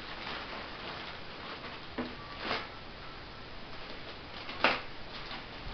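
Clear plastic packaging being handled and pulled off a metal monitor arm: soft rustling with a few short crinkles and knocks, the sharpest near the end.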